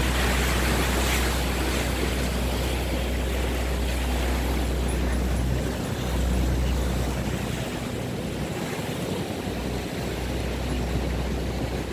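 Wind buffeting the microphone over a steady rush of choppy water, heard from a moving boat. The low rumble drops out briefly a little past the middle and again for a couple of seconds later on.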